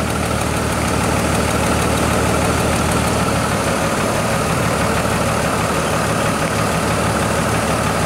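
2002 Chevrolet Trailblazer's 4.2-litre inline-six idling steadily with a constant misfire on cylinder number two.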